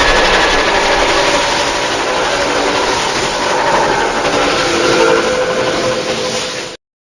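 Custom-made Mothra Leo monster sound effect: a long, loud, harsh hissing cry with faint held tones inside it, cutting off sharply near the end.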